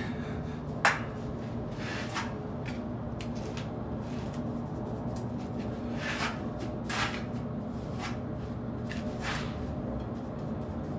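A trowel scraping and spreading mortar along the top of a course of glass blocks: scattered short scrapes and taps, the sharpest about a second in, over a steady low hum.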